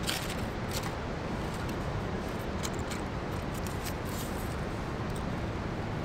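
Split wooden kindling sticks clacking as they are laid one by one into a campfire ring, a few short sharp wooden clicks over a steady rushing background.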